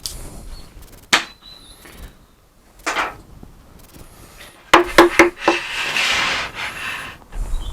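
Wooden workpieces being handled during a glue-up: a few separate sharp wooden knocks, a quick run of four knocks about five seconds in, then about two seconds of wood rubbing against wood.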